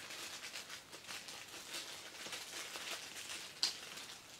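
Small clear plastic accessory bag crinkling and rustling as it is handled and opened, with one sharper, louder snap about three and a half seconds in.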